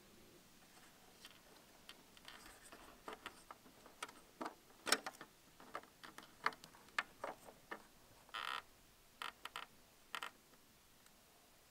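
Plastic clicks and rattles of a tail-light bulb holder being twisted out of its lamp housing and an amber PY21W indicator bulb being pulled from its bayonet socket: a string of irregular sharp clicks, with a brief scrape a little past eight seconds in.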